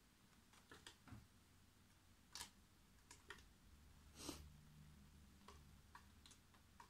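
Near silence with faint, scattered clicks and soft rustles, about a dozen, the longest about four seconds in: a cat moving about on a tiled floor at the base of a scratching post.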